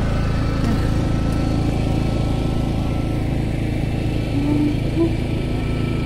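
A steady, even engine drone.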